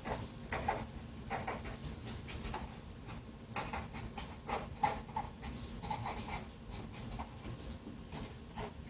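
Felt-tip marker scratching across paper in short, irregular strokes as words are written by hand, over a faint steady hum.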